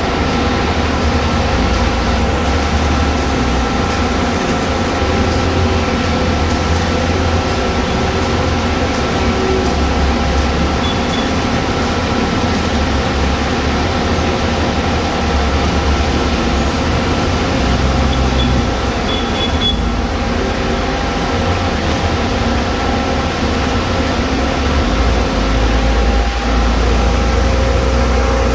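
Heavy recycling-plant machinery of a shredding and baling line running steadily: a loud, deep drone with a constant mechanical hum. The low drone gets heavier near the end.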